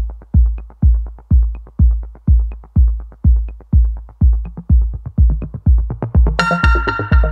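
Electronic background music with a heavy kick drum about twice a second; bright synthesizer chords come in near the end.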